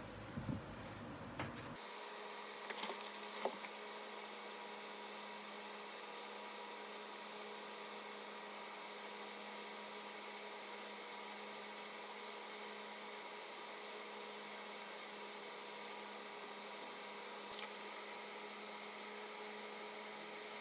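Steady low hum with a few light clicks and taps, several in the first few seconds and one near the end.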